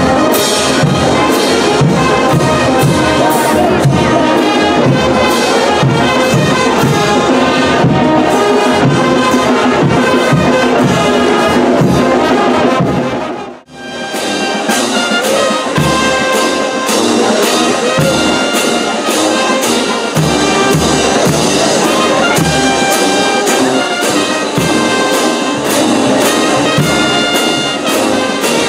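A brass band playing, with trumpets and trombones over a steady drum beat. About halfway through the music cuts out for a moment, then comes back.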